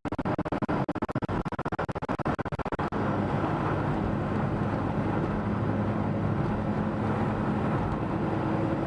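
Steady low rumble of a car driving. For about the first three seconds the sound is chopped into rapid stutters, then it runs evenly.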